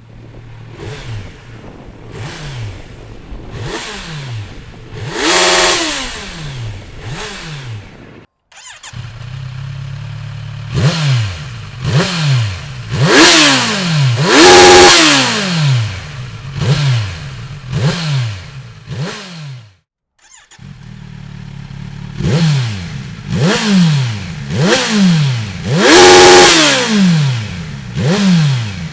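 A 2017 Kawasaki Z900's 948 cc inline-four, fitted with an aftermarket Dominator exhaust, is revved repeatedly while stationary, each blip rising and falling in pitch. This comes in three bursts separated by two brief breaks, each burst peaking in one higher, louder rev.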